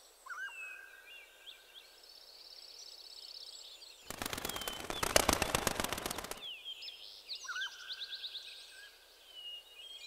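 Birds calling, with short whistled notes that slide up and down and a fast high trill. For about two seconds in the middle, a loud rapid rattle of clicks sounds over them.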